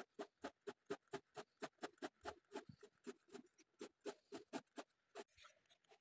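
Red coloured pencil scratching on paper in quick back-and-forth shading strokes, a faint even rhythm of about six strokes a second that thins out about five seconds in.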